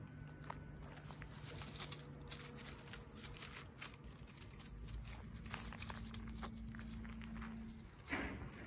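A cat eating fish with its head down in dry grass: irregular crunching and tearing as it chews, mixed with crackling rustles of dry stems, and a louder rustle near the end. A faint steady low hum runs underneath.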